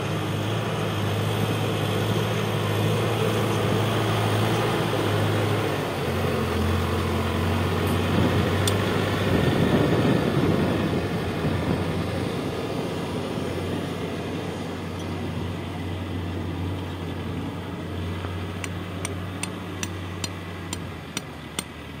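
Case backhoe loader's diesel engine running steadily, its note dropping slightly about six seconds in and getting louder for a few seconds near the middle as the machine works. Near the end its reversing alarm starts, short pulses about twice a second.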